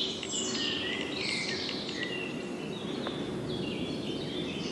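Several songbirds singing and chirping at once, short rapid trills and chirps over a steady outdoor background hiss.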